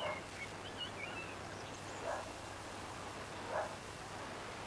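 A dog barking three times, with birds chirping.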